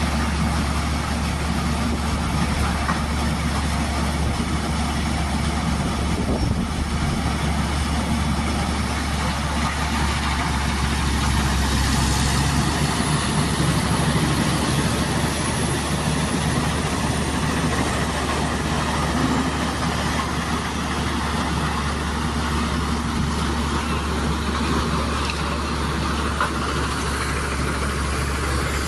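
A YMPJ2113 wood chipper running steadily, a loud, continuous engine-and-machine drone. It grows a little louder about halfway through.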